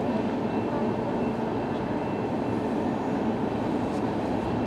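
Freight train cars rolling past at steady speed: a continuous, even rumble of steel wheels on rail.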